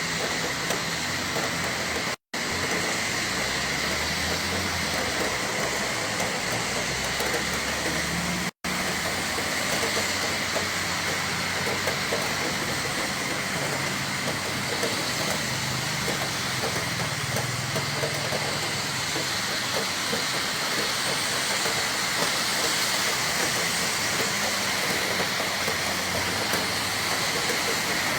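Heavy rain pouring down in a steady, dense hiss, during a rainstorm with strong wind. The sound cuts out for an instant twice, about two seconds in and again about eight and a half seconds in.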